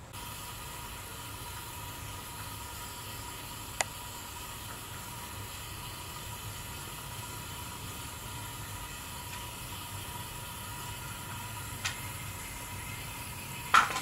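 Steady hiss with a faint whine while R22 refrigerant is being charged into the air conditioner from a cylinder on a scale. A few sharp clicks break through, the loudest near the end.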